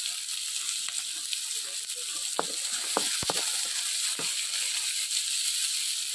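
Onions, chillies and curry leaves sizzling steadily in hot oil in a steel kadai, with a few sharp clicks through the middle as a wooden spatula stirs and knocks against the pan.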